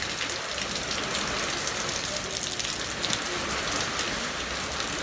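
Steady rain falling on the street and roofs, with single drops striking close by.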